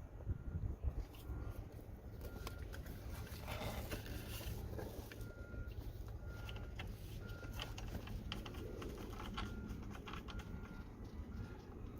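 Low rumble like wind on the microphone, with many small scattered clicks and rattles, and a faint high tone that comes and goes in short dashes.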